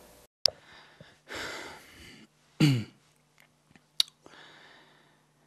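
A man breathing close to a microphone: a breathy exhale, then a short loud voiced sigh that falls in pitch. Two sharp clicks come, one near the start and one about four seconds in.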